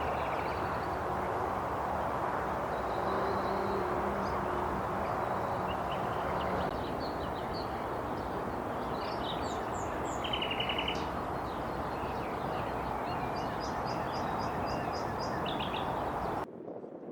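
Black redstart singing over steady background noise: scattered high notes, a short rapid scratchy rattle about ten seconds in, and a quick series of high notes a few seconds later. The background noise cuts off abruptly near the end.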